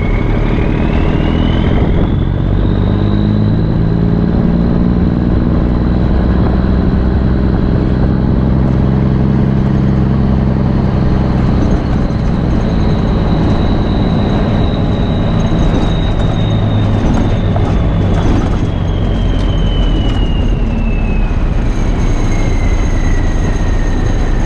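Straight-piped Cummins NTC 240 small-cam diesel running hard under way in a 1982 Ford LN9000. A high whine climbs over the first few seconds, holds, then falls away steadily through the last several seconds.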